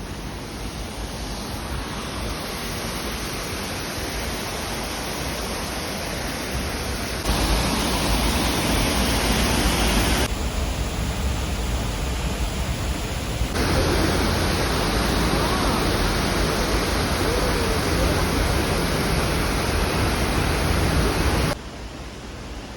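Steady rushing of falling water, a waterfall, heard across several cut-together shots, with sudden jumps in loudness at each cut.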